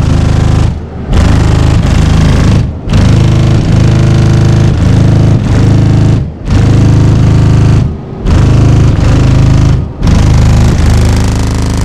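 Four American Bass 15-inch subwoofers in a walled-off car playing a bass-heavy track at very high volume on about 4000 W. The deep bass comes in long phrases broken by brief drops about every one and a half to two seconds.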